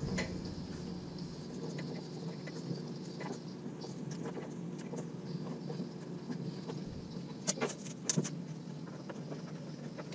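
Steady low machine hum in a workshop, with a few light metallic clicks and clinks as handles are taken off a bandsaw table by hand, two of them close together near the end.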